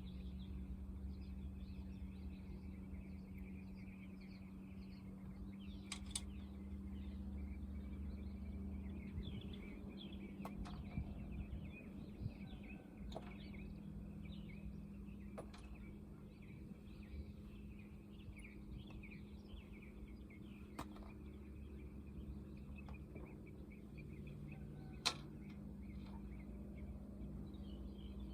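Birds chirping and singing over a steady low hum, with a few sharp clicks scattered through, the loudest about 25 seconds in.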